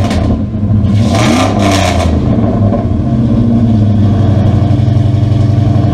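Dodge Ram 1500's 4.7-litre V8 running through a newly fitted Flowmaster 40 Series exhaust, heard at the tailpipes: a short rev about a second in, then a steady, deep idle.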